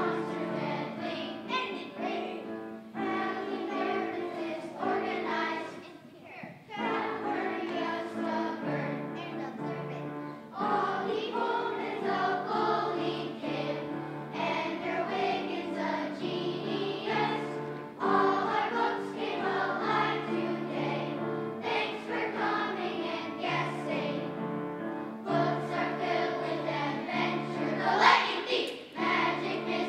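A choir of about forty children singing a song together, over steady held accompaniment chords that change every second or two.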